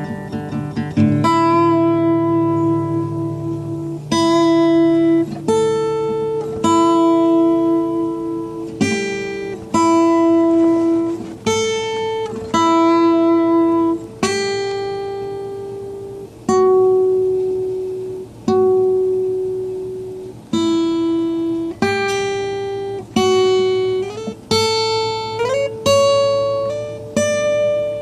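Acoustic guitar played solo: a slow, calm melody of single picked notes, each left to ring and fade, over held bass notes, with a note sliding up in pitch near the end.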